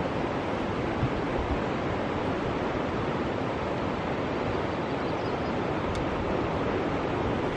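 Steady rushing of tidal rapids: a strong ebb-tide current pouring through a narrow channel, breaking into standing waves and white water.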